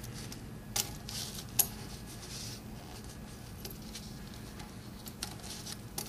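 Stainless steel link watch band and clasp buckle being handled: light metallic clicks and clinks, the two loudest about one and one and a half seconds in, and a few softer ones near the end.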